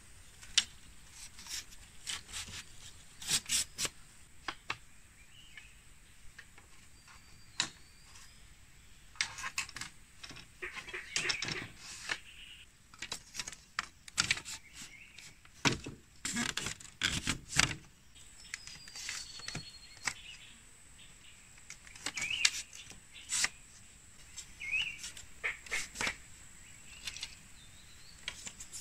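Thin split-bamboo strips clicking and clattering against each other as they are woven by hand through a bamboo-slat lattice, in irregular sharp clicks and short clattering runs.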